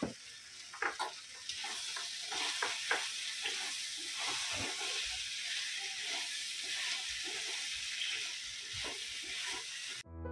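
A pounded bombil (Bombay duck) and chilli-garlic thecha with fresh coriander sizzles steadily in a stainless steel wok while a silicone spatula stirs and scrapes it, with scattered soft knocks. The sizzle cuts off abruptly near the end.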